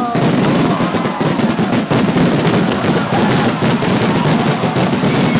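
Fireworks display: a dense, continuous barrage of rapid crackling bangs, with a few whistles near the start and near the end.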